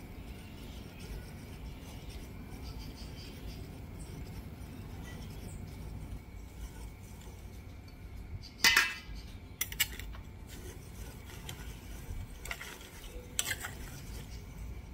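Kitchen utensils clattering: a few sharp metal clanks and clinks, the loudest about nine seconds in and smaller ones near the end, over a low steady hum.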